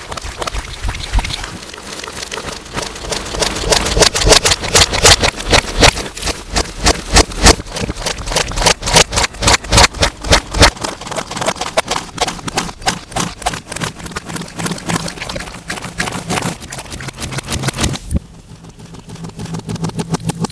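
Slime being squished and worked, giving rapid wet clicks and pops, several a second, with heavy distortion over a low steady hum. The clicks are densest and loudest through the middle and thin out and soften near the end.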